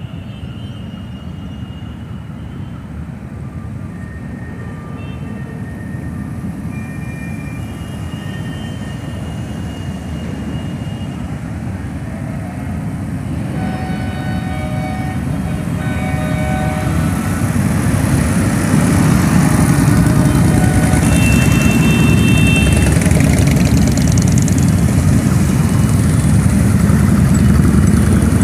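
Rumble of a large group of motorcycle engines, a parade column riding past, growing steadily louder as the bikes approach and then holding loud as they pass close by. A few short horn toots sound over it.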